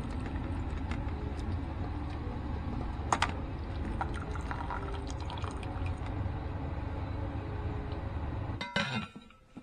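Soup broth pouring and draining through a plastic colander into a metal pot, a steady splashing stream with a few sharp clicks. Near the end there is a brief knock, and then the pouring stops.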